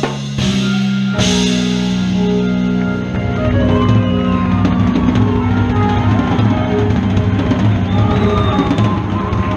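Live rock band playing: a drum kit keeping a steady groove with cymbal crashes near the start, held bass notes underneath, and a lead line with bending notes coming in a few seconds in.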